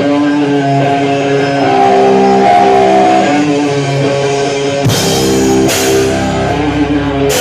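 Live rock band playing loud: held electric guitar chords, with heavy drum and cymbal hits coming in about five seconds in.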